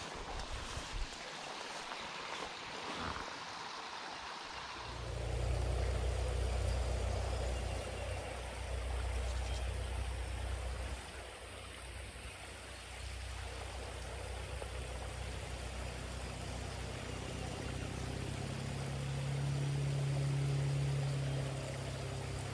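Small creek running steadily, with a few knocks from the camera being handled in the first seconds. A low rumble sets in about five seconds in.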